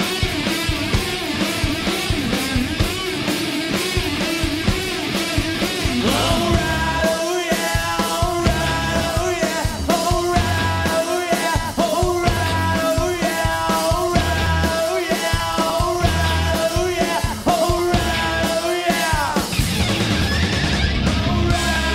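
Rock song with singing over guitar and a steady drum beat.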